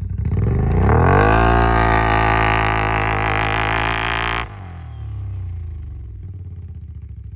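ATV engine revved hard as the quad ploughs through deep snow. The revs rise over about a second, hold high for about three seconds, then drop off suddenly to a lower, steady run.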